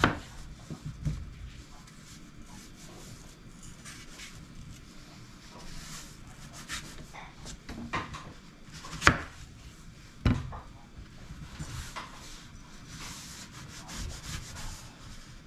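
Kitchen knife slicing an apple on a wooden cutting board: soft cutting and scraping through the fruit, with scattered sharp knocks of the blade on the board, the two loudest about nine and ten seconds in.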